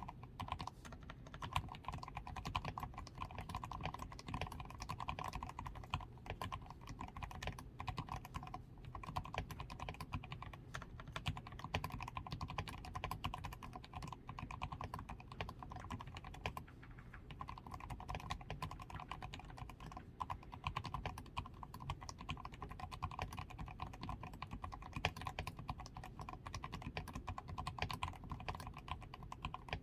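Continuous typing on a DAREU A87 Pro mechanical keyboard that has Krytox-lubed switches and stabilizers, a tape-modded PCB, foam-reinforced switches and XDA keycaps: a dense, steady stream of keystrokes without pauses.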